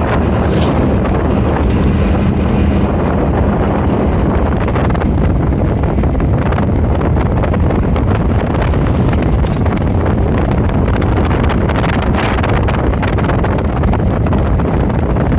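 Loud, steady wind noise rushing over the microphone on a moving vehicle, mixed with the vehicle's running noise. A steady low hum fades out a few seconds in.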